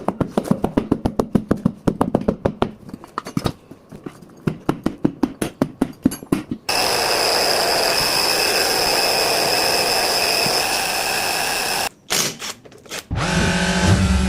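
Tyre-shop tool work: a quick run of sharp clicks and taps for about six seconds, then a steady hiss of compressed air for about five seconds that cuts off suddenly. A motor starts humming near the end.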